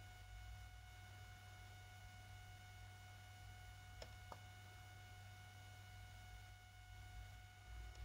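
Near silence: room tone with a faint steady electrical whine and low hum, and two faint clicks about four seconds in.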